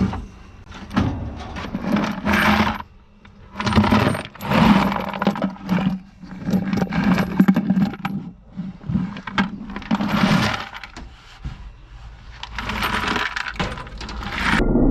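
Scrap metal clanking and rattling in a series of separate bursts as pieces are handled and tossed onto other metal.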